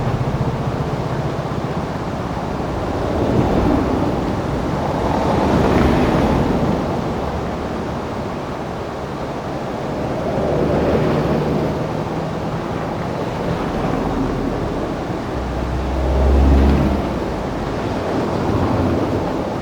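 Rushing whitewater of a river rapid, heard from a raft as a loud continuous wash that swells several times, with wind buffeting the microphone in low rumbles.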